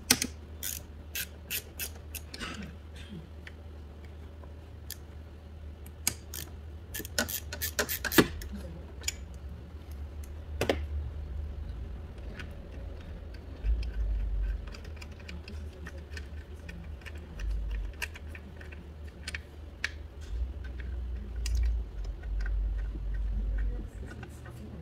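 Irregular sharp clicks and rattles of connectors, clips and hoses being handled around the throttle body of a 2015 Infiniti QX60's engine, bunched in the first half and sparser later. Low rumbles come in the second half.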